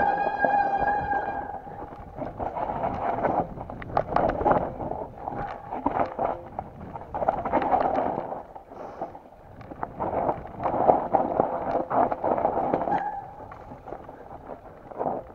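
Mountain bike rattling and clattering down a rocky, rooty trail, with the brakes squealing at a steady pitch for the first second or so and again in stretches while the rider brakes. The squeal fits the glazed front brake pad, which did not grab properly.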